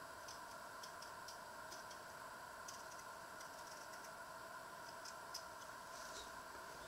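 Small knife peeling a raw potato: faint, irregular little clicks and scrapes of the blade through the skin, over a steady hum.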